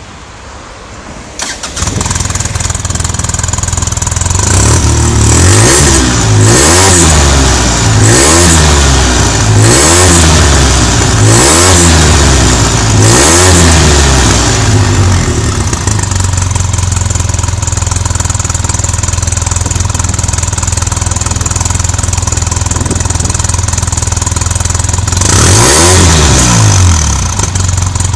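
Polaris RZR-S twin-cylinder engine through its factory sports exhaust, starting up and catching after about a second and a half. It then idles and is blipped about seven times in quick succession, each rev rising and falling. It settles back to a steady idle, with one more rev near the end.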